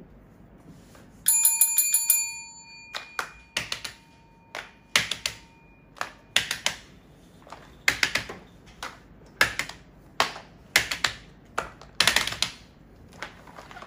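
A bell-like chime with quick repeated strikes rings just over a second in and fades out by about three seconds. Then comes a series of short slaps and taps, often in pairs and about one a second, as silicone pop-it toys are set down one after another on paper.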